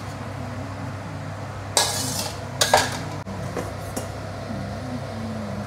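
Metal spatula scraping and clattering in a metal wok of sauce, twice about two seconds in, followed by a few light clinks, over a steady low hum.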